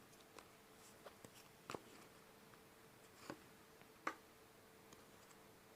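Near silence: quiet room tone with a faint steady hum and about five soft, scattered clicks and taps.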